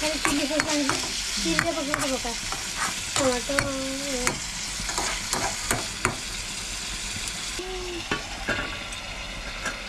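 A spatula stirs and scrapes curry frying in a metal kadai on a gas stove: steady sizzling with many short clicks of the spatula against the pan. A wavering pitched sound is heard over the first four seconds.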